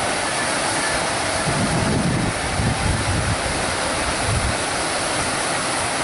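Belovsky waterfall, about four metres high, pouring into a pool: a steady rush of falling water, with a deeper rumble swelling between about one and a half and four and a half seconds in.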